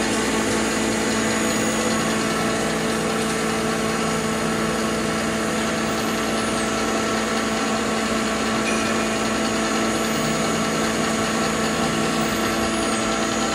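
Electric stainless steel spice pulverizer running while cumin seed is hand-fed into its hopper: a steady motor hum with several fixed whining tones and no change in speed.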